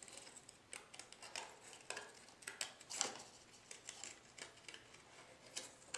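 Scissors snipping through cardstock in short, irregular cuts, faint.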